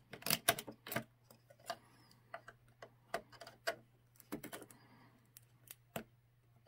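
Razor blade scraping and picking at dried hot glue on painted wooden dollhouse trim, giving irregular small clicks and scratches.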